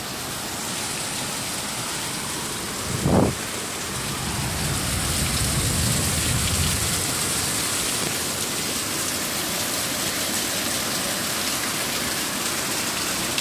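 Heavy rain pouring down steadily in a storm. About three seconds in there is a brief low thump, followed by a low rumble that lasts a few seconds.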